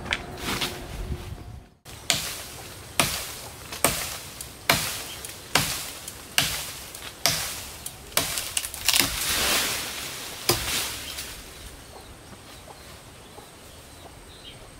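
Cutting into a lychee branch: a run of about ten sharp blade strokes, roughly one a second, each dying away quickly, with a longer swish of shaking leaves about nine seconds in. The strokes stop after about eleven seconds, leaving only faint background.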